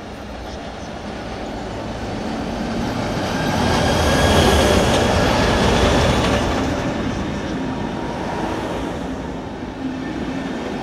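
A Swiss Federal Railways electric locomotive hauling passenger coaches passes close by, its rumble over the rails growing to a peak about four to six seconds in as the locomotive goes by, with a thin high whine at the loudest part. The coaches then keep rolling past, a little quieter.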